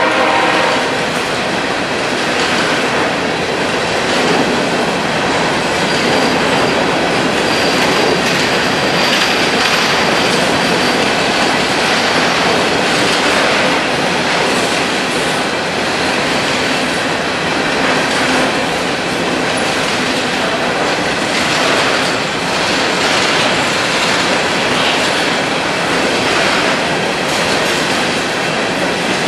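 Loaded coal hopper cars of a BNSF freight train rolling past close by: a steady, loud rumble and clatter of steel wheels on the rails. A locomotive horn cuts off right at the start. About six seconds in, a faint high wheel squeal comes through for a few seconds.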